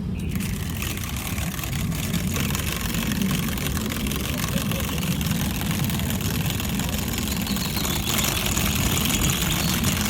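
Electric mixer running steadily for about ten seconds, starting and stopping abruptly, its pitch brightening slightly about eight seconds in.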